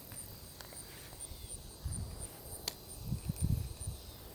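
Insects chirping in a faint, steady high pulse, about two to three chirps a second. Dull low rumbles come about two seconds in and again past three seconds, with a single sharp click between them.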